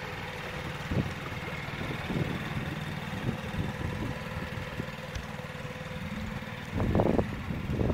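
Small outboard motor on an inflatable dinghy running steadily as the dinghy motors away. Wind buffets the microphone near the end.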